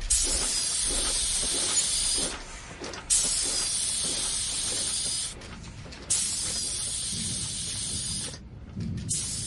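Factory machinery letting out sharp hissing releases in regular bursts, each about two seconds long, starting about every three seconds, four times. Underneath is a low machine rumble with faint rhythmic knocking.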